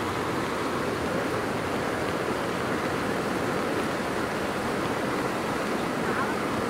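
Swollen, muddy floodwater rushing steadily, churning in white-water over a submerged crossing as the river runs in spate.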